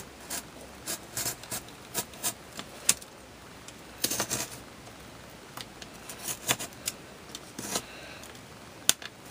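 Utility knife cutting away excess cardboard: irregular short scraping cuts and sharp clicks, with a cluster of strokes about four seconds in.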